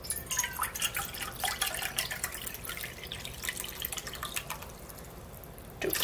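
Vegetable broth splashing and dripping in uneven spatters as it is poured into a measuring cup. Near the end it turns into a louder, steady stream pouring into a pot of chili.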